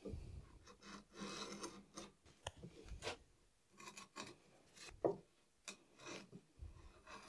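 A hand tool scraping over wood in irregular strokes, with a few short sharp knocks between them, the loudest about five seconds in.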